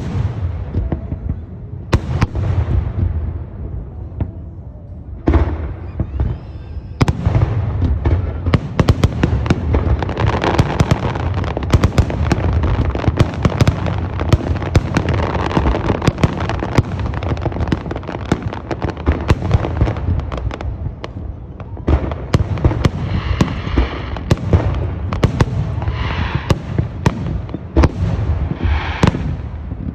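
Fireworks display: a dense, continuous run of aerial shell bursts and crackling, with a few separate booms early on building into a nearly unbroken barrage from about seven seconds in.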